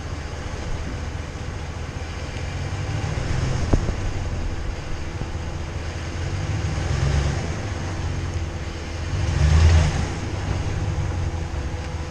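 Full-size Ram pickup truck's engine rumbling at crawling speed on a rough trail, the throttle swelling three times as it works over the obstacle, the last swell with a burst of hiss. A single sharp knock about four seconds in.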